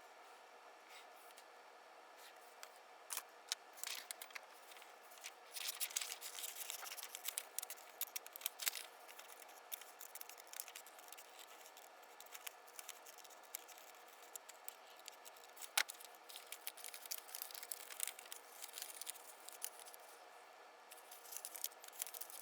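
Faint drafting work on paper: light scratching in short stretches with scattered sharp clicks and taps, as a pencil and square are worked over the drawing.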